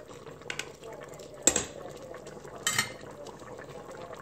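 Metal tongs clinking against the metal inner pot of a multicooker while turning beef short ribs in the hot red wine braising liquid: a couple of light clicks, a sharp clank about a second and a half in, and another clatter a little over a second later.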